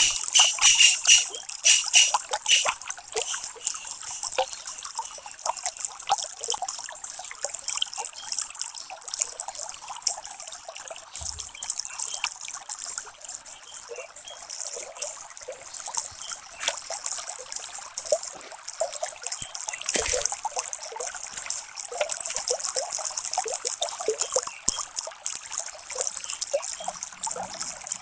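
Ballpoint pen tip scratching across paper in quick short strokes, a dry hissing scratch that comes and goes as lashes and eyebrow hairs are inked.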